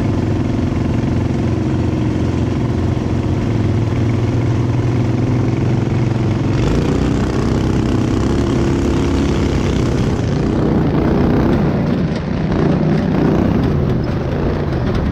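Off-road go-kart's small gasoline engine running steadily at low speed, then about six seconds in the throttle opens and the engine runs hard and uneven as the kart pulls away.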